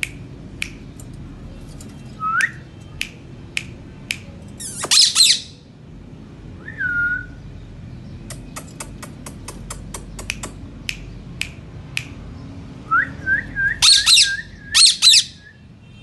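Indian ringneck parakeets squawking: a harsh squawk about five seconds in and two more near the end, with short gliding whistles between them and a quick string of rising whistles just before the last squawks. Sharp clicks are scattered throughout, coming fast, about four a second, in the middle.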